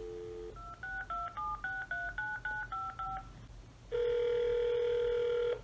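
Cordless phone handset: a dial tone ends about half a second in, then about ten short touch-tone keypad beeps as a number is dialled, then a steady ringback tone for nearly two seconds near the end as the call rings through. The ringback is the loudest part.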